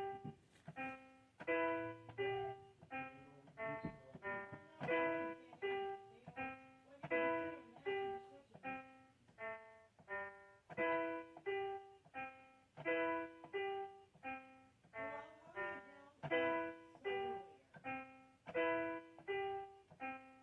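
Background piano music: a simple tune of evenly paced notes, repeating in short phrases.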